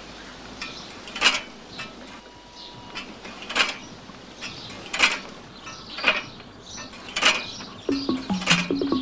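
Sparse background music: a sharp, high percussive hit about every second and a quarter, with the bass line resting until just before the end.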